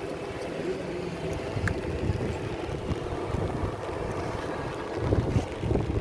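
Wind buffeting the microphone: an uneven low rumble with stronger gusts about five seconds in.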